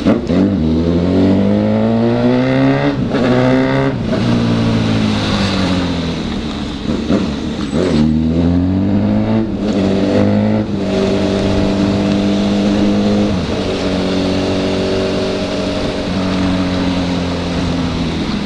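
Honda CB1000 motorcycle's inline-four engine pulling through the gears: the revs climb, break off at shifts about three and four seconds in, drop back and climb again, then settle into a steady cruise for the second half.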